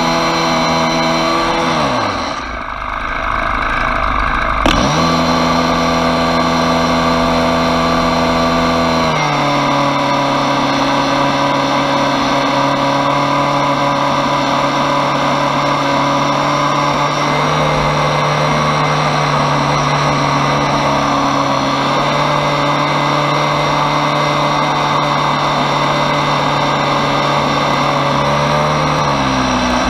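Petrol leaf blower running at high throttle: the engine drops to a low idle about a second in, revs back up a few seconds later, then runs steadily with small changes in speed and eases off again just before the end.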